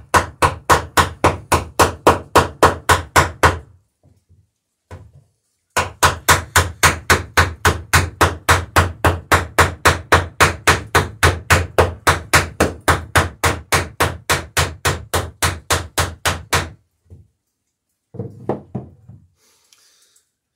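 Ball-peen hammer peening over a rivet in the lapped planking of a wooden dory hull, rapid even blows at about four or five a second. A run of a few seconds, a short pause, then a longer unbroken run of about eleven seconds.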